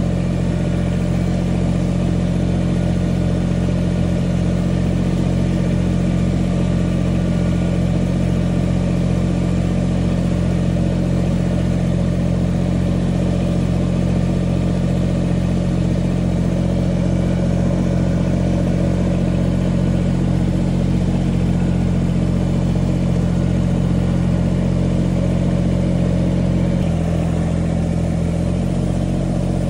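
Diesel engine of a Kubota compact tractor running steadily under working throttle while driving and carrying a load on its front loader, heard from the operator's seat. The engine note shifts briefly near the end.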